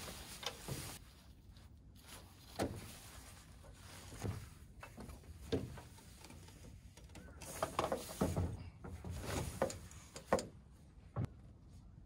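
Scattered soft knocks and short rustles, about one every second or two, over a faint outdoor background.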